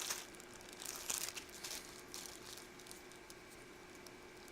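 Crinkling and rustling of a plastic bag being handled, most likely the bag of crimp wire fittings, in irregular soft bursts that are busiest in the first couple of seconds and then thin out. A faint steady hum sits underneath.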